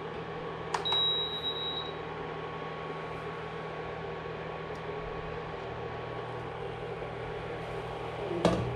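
USHA induction cooktop giving a single high beep lasting about a second as its power button is pressed to switch it off, over a steady hum from the cooker. A sharp knock comes near the end.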